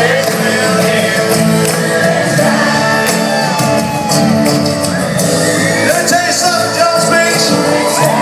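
Live country band playing through a large concert sound system, heard from far back in an outdoor amphitheater crowd, with voices shouting and singing over the music.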